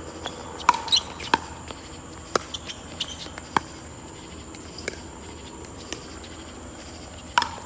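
Pickleball rally: sharp pops of paddles striking the hollow plastic ball and of the ball bouncing on the hard court, irregularly spaced, with a cluster about a second in and another near the end. A steady high insect trill runs behind.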